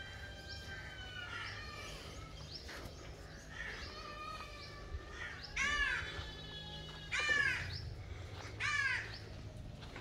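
A crow cawing three times in the second half, loud calls about a second and a half apart, with fainter bird calls before them.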